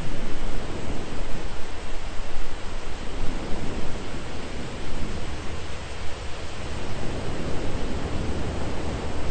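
Thunderstorm ambience: a steady hiss of rain with a low rumble beneath it that swells and eases.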